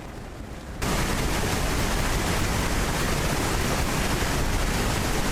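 Loud, steady rushing noise of a mud and debris flow pouring down a slope, with a crackly texture; it starts abruptly about a second in.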